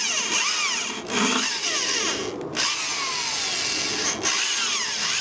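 Corded Makita 6510LVR variable-speed drill reaming out holes in a lawn mower engine's flywheel, the bit lubricated with cutting oil. The motor whine rises and falls in pitch with the trigger, and the drill stops briefly three times.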